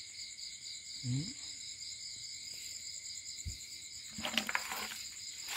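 Crickets trilling steadily in a high-pitched, continuous night chorus, with a few soft clicks and rustles about four seconds in.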